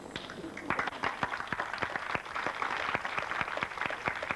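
Audience applauding, thin at first and filling out about a second in.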